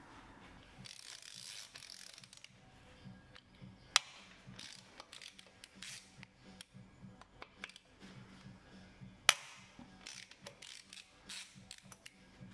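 Ratchet wrench clicking as the screws on a Ducati Scrambler 800's timing-belt tensioner are loosened, with two sharp clicks, about four and nine seconds in.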